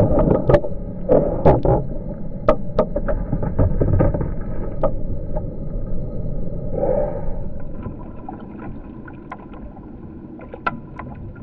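Water splashing and sloshing at a kayak, with many sharp splashes and slaps in the first few seconds, a rush of splashing around seven seconds in, and a few more sharp splashes near the end.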